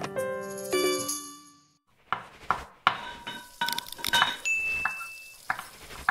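Music with plucked notes fades out in the first two seconds. Then an outro sound effect of quick clinks and taps like dishes and cutlery, with a high ding held for about a second near the end.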